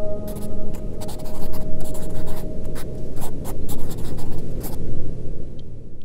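A gong-like ringing tone dies away over the first few seconds. Under it runs a rough, scratchy noise with many scattered crackles, which fades out near the end.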